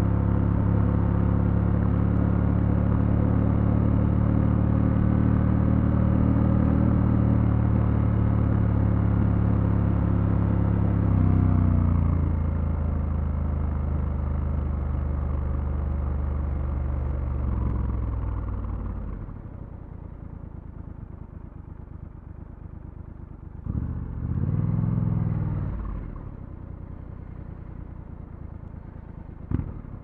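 Triumph Scrambler 1200 X parallel-twin engine pulling steadily while riding, with a brief change in pitch about eleven seconds in. Around nineteen seconds it falls away to a much quieter level. About five seconds later comes one short rev that rises and falls.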